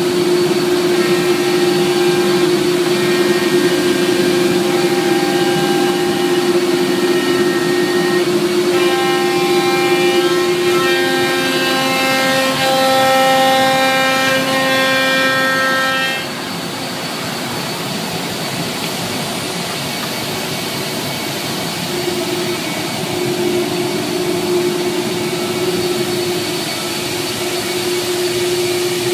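FMT 5x10 CNC router cutting sheet stock: a steady spindle whine with shifting tones over the rushing noise of its dust collection. About 16 seconds in the cutting stops, the whine drops away and a steadier, slightly quieter rushing hum remains.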